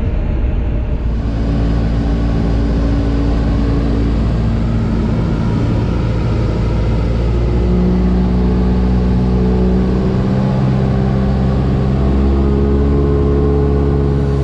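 Cessna 172's piston engine and propeller running steadily, heard from inside the cockpit, with its tone shifting about halfway through.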